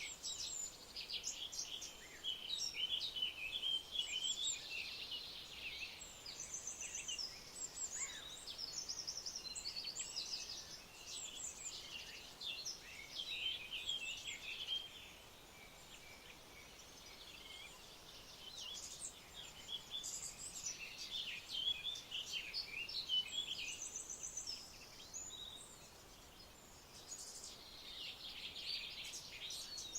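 Several small birds chirping and calling, with short notes and quick trills overlapping and thinning out twice, over a faint steady hiss.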